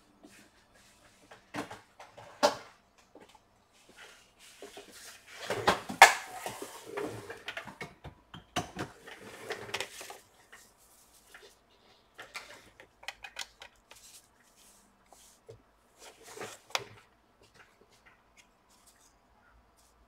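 Scattered clicks, knocks and light clatter of a laptop, cable and tools being handled on a workbench, with the loudest burst of knocking about six seconds in and quiet gaps between.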